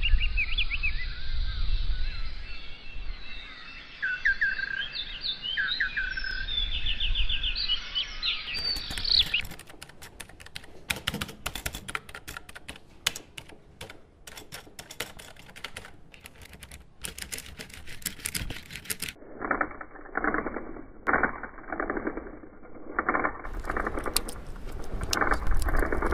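An edited sound collage: birds chirping and calling over a low rumble for about the first nine seconds, then scattered sharp clicks and taps, then from about two-thirds of the way in a muffled run of repeated strokes.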